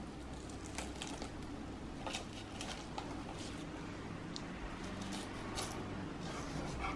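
A fork squashing a soft, cooked head of garlic on a wooden board: wet squishing with scattered small clicks and crackles as the cloves are pressed out of their papery skins.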